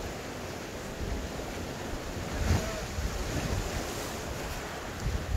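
Strong wind buffeting the microphone over sea waves washing against a rocky breakwater. There is a short louder thump about halfway through.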